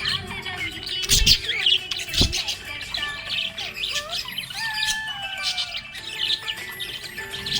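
Budgies chirping and warbling in rapid high chatter, mixed with whistled glides and held notes. Two low thumps sound about one and two seconds in.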